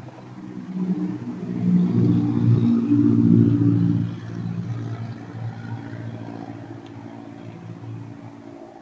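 A car engine, growing louder to its loudest about two to four seconds in, then fading away slowly.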